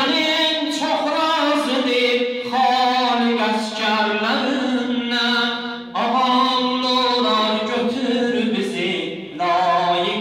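A man singing a religious eulogy (madh) unaccompanied into a microphone. He holds long melodic notes in phrases of about two seconds, with short breaths between them.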